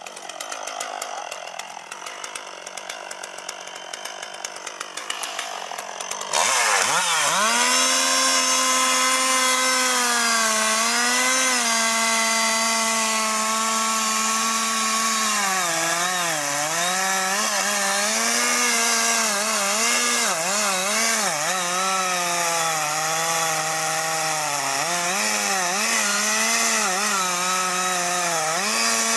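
Two-stroke chainsaw idling with a fast, even putter, then opened to full throttle about six seconds in and cutting into a tree. Its steady high engine note sags in pitch several times as the chain bites into the wood, then drops off at the end.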